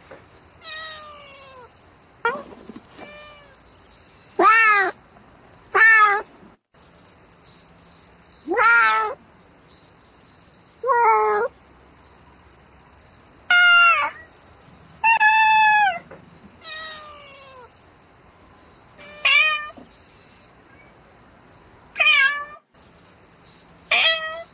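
A cat meowing again and again: about a dozen drawn-out calls that rise and fall in pitch, one every second or two, some loud and some fainter. The cat is calling for a mate.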